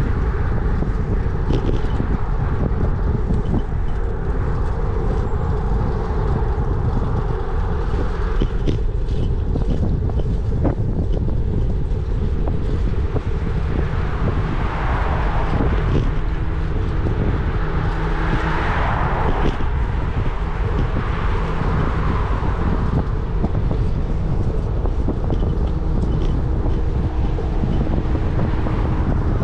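Wind buffeting the microphone during a bicycle ride, a steady low rumble. Road traffic swells up and fades a few times in the middle.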